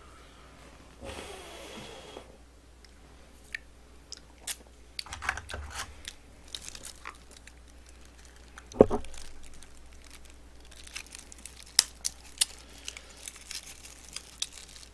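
Chewing and eating sounds with scattered clicks and taps of scallop shells handled in plastic-gloved hands, and one louder knock about nine seconds in.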